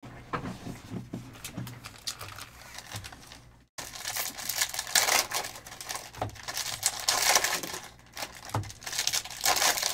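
Foil wrappers of Panini Select hobby card packs crinkling and being torn open by hand, a continuous crackly rustle. It drops out briefly just before four seconds in, then comes back louder.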